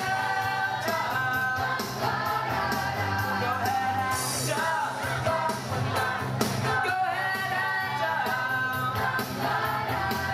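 Youth glee choir singing a pop song through microphones and a PA, over an accompaniment with a steady bass and beat.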